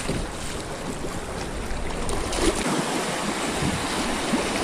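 Creek water rushing and splashing through a shallow rapid around a kayak, a steady white-water noise.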